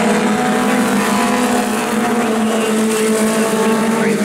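Mini stock race cars' engines running together as the pack circles a dirt oval, a steady drone of several engines at race speed.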